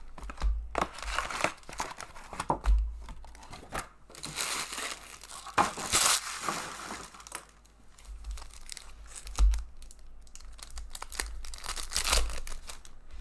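Foil wrappers of 2014-15 Upper Deck Series 1 hockey card packs being torn open and crinkled by hand, in irregular bursts of crackling rustle.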